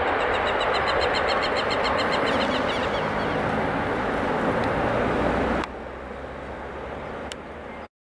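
Airbus A319 jet engines running loud as the airliner rolls down the runway. The noise drops sharply about five and a half seconds in, then cuts off just before the end. In the first three seconds a bird chirps in a rapid series over the roar.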